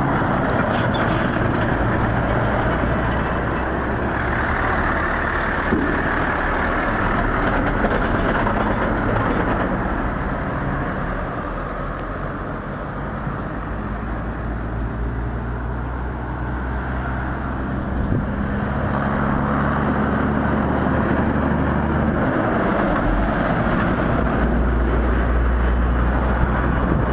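Road traffic passing close by on a two-lane road: cars and a van driving past with tyre and engine noise that rises and falls as each goes by. A low engine hum builds in the last third as a vehicle approaches.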